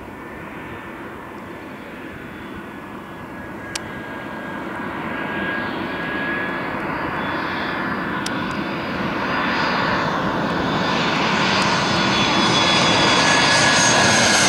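Turbofan engines of an Airbus A320-family jet airliner taxiing close by: a steady whine over a rumble that grows steadily louder as the aircraft approaches, loudest near the end.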